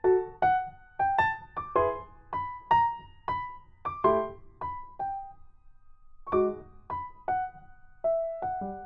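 Background music: a piano playing a slow melody of single struck notes, each fading away, with a short pause a little past the middle.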